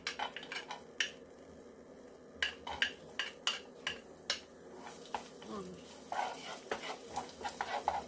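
Chopped garlic sizzling in hot oil in a nonstick frying pan as it is sautéed, stirred with a wooden spoon that taps and scrapes against the pan in a run of sharp knocks. The sizzle and stirring grow busier in the last couple of seconds.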